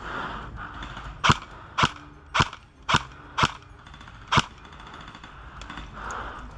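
Airsoft gun shots: six sharp cracking reports, five about half a second apart and a sixth after a short pause, as a rifle is fired shot by shot.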